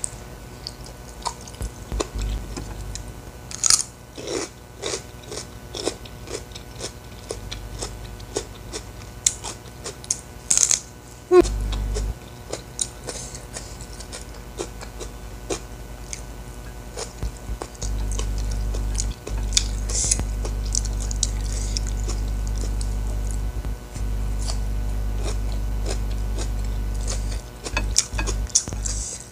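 Close-miked eating sounds: chewing, lip smacks and small crunches as rice with chilli sambal is eaten by hand, with a few sharper smacks around 4 and 11 seconds in. A low steady hum cuts in and out beneath it.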